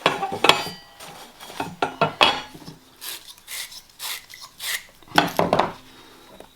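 Copper pipe and fittings clinking together with a brief metallic ring. This is followed by four rasping strokes about half a second apart, as of the metal being scrubbed clean, then more clinking.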